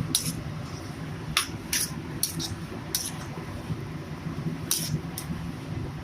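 Seven or so sharp clinks of kitchen utensils against cookware, spaced irregularly, over a steady low hum.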